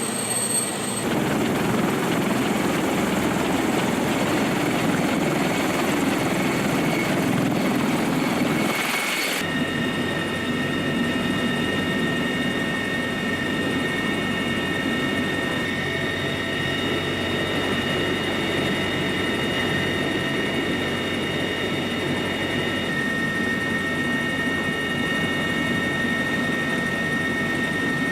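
Sikorsky CH-53E Super Stallion heavy-lift helicopter running: a loud, steady rush of rotor and engine noise. About nine seconds in it changes abruptly to a steadier sound with a high, steady whine over it.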